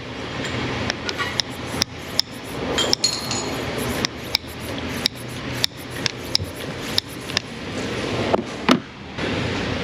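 Hand pump of a cooling-system pressure tester being worked in repeated strokes, with sharp clicks and a rushing sound that swells and drops back about once a second. The system is not building pressure well; it is leaking at the water outlet housing.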